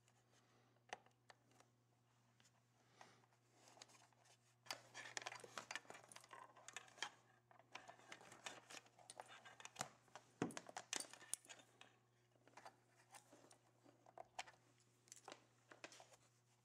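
Faint handling noises: irregular clicks, small knocks and rustling of wires and plastic connectors being pushed into a CNC controller's enclosure, busiest in the middle, over a faint steady low hum.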